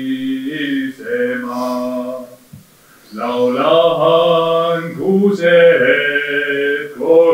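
A solo unaccompanied voice singing an Estonian regilaul in a chant-like line of held notes that step up and down. There is a short pause about two and a half seconds in.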